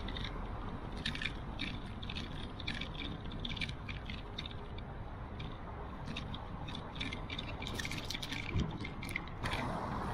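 Bicycle rolling over paving tiles: a steady low rumble with irregular rattling clicks from the bike. About nine seconds in it changes abruptly to a steadier hiss of riding on the road.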